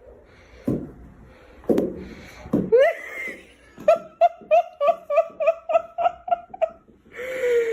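A person laughing: a few short laughs at first, then a fast run of 'ha-ha-ha' for about three seconds, about five a second.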